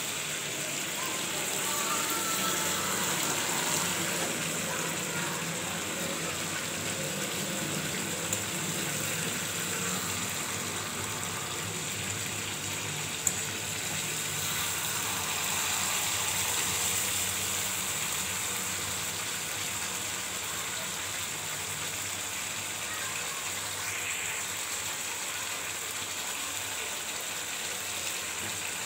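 Chicken pieces frying in oil and spice paste in a steel kadai, a steady sizzle, with a metal spatula stirring and now and then clicking against the pan.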